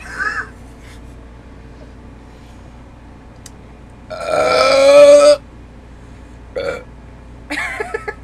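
A person's long, loud burp about four seconds in, lasting over a second, brought up during a soda-drinking burp contest. Brief shorter vocal sounds come at the start and near the end.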